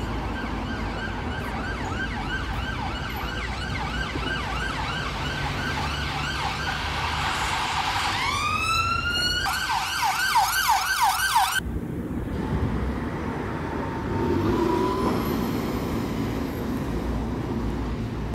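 Ambulance siren sounding a rapid yelp, sweeping up into one long rising wail about eight seconds in, then a faster yelp, the loudest part, that cuts off suddenly at about twelve seconds. Road traffic noise runs underneath and carries on after the siren stops.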